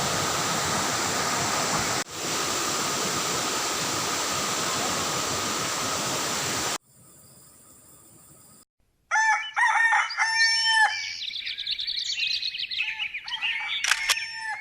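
Steady rush of a waterfall for the first seven seconds, with a brief cut about two seconds in. After about two seconds of near silence, a bird's crowing calls follow, several cries bending in pitch.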